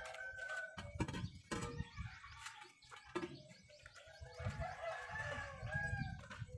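A rooster crowing, strongest a little past the middle, with other birds calling, over irregular low rumbling.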